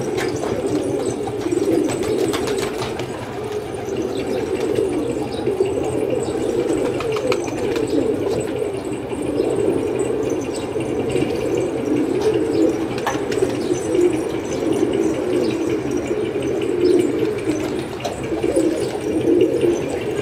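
Domestic pigeons cooing, the coos overlapping into a steady, continuous low chorus.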